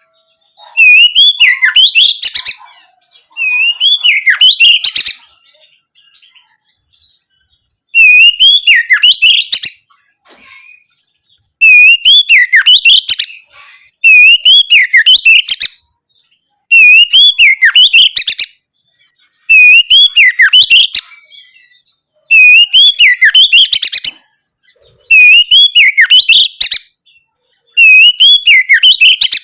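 Oriental magpie-robin (kacer) singing its loud, full-voiced 'ngeplong' song. It repeats much the same phrase about ten times, one every two to three seconds. Each phrase is a swooping whistle followed by a fast run of high notes.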